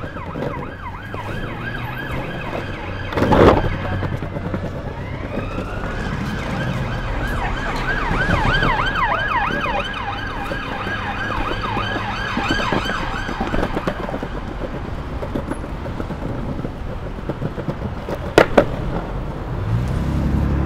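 Emergency vehicle siren sounding in city traffic: a slow wavering wail that switches to a faster yelp about six seconds in and stops about fourteen seconds in. Under it runs the steady rumble of longboard wheels on pavement and asphalt, with a loud knock about three seconds in and two sharp clicks near the end.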